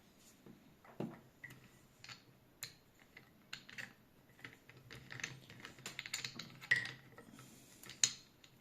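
Irregular light clicks and taps of small hard parts being handled and set down: the dies, watch case and crystal being fitted into a watch crystal press.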